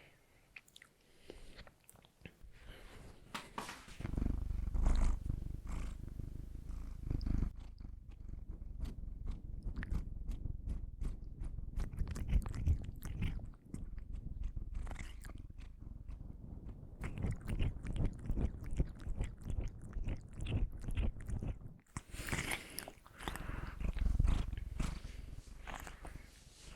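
Close-miked chewing and biting of donuts: wet mouth clicks and smacks over a low, dense rumble, starting a few seconds in.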